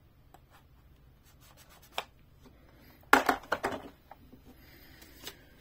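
Fingers rubbing and tapping on a large plastic toy truck, then a quick cluster of plastic clatters and knocks about three seconds in as the truck is handled and set down on the table.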